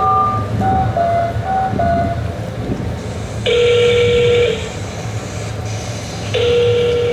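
A horn sounding two long steady blasts, about a second each and some three seconds apart, over a steady low rumble. A short run of beeping notes at changing pitches comes before the first blast.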